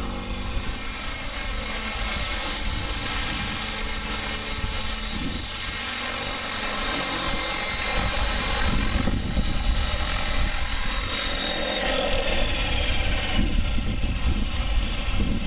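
Align T-Rex 600 radio-controlled helicopter running, a high whine that drifts slightly down in pitch and fades out about twelve seconds in, with wind buffeting the microphone throughout.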